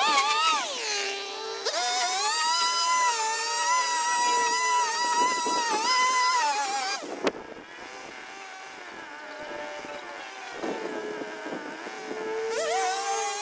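String trimmer motor running at speed with a steady whine, its pitch dipping briefly just after the start. About seven seconds in it drops to a lower, quieter speed, then speeds up again near the end.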